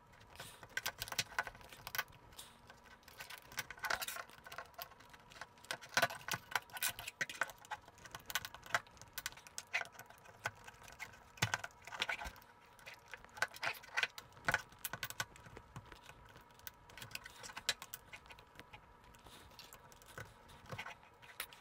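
Irregular clicks and taps of plastic opening picks being pushed into the seams of a Dyson V8 vacuum's plastic housing to pry it apart.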